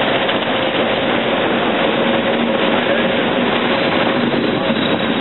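Class 20 diesel locomotive's English Electric eight-cylinder engine running under power as it passes close by, a steady heavy noise with a faint steady hum, with wind buffeting the microphone.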